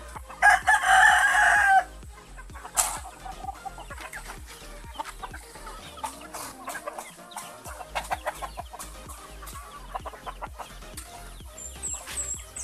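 A rooster crows once about half a second in, a loud call lasting just over a second. Then chickens cluck among scattered short clicks, and a run of high, quick chirps comes near the end.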